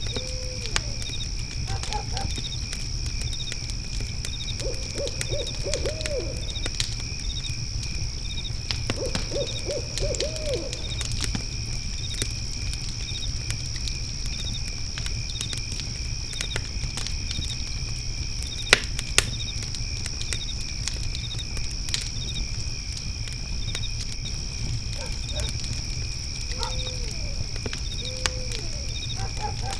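Night ambience of crickets trilling steadily with regular chirps, a fire pit crackling with scattered pops and two sharper snaps about two-thirds of the way through, and an owl hooting: a pair of short hoots at the start and again near the end, and two quavering runs of hoots about 5 and 9 seconds in.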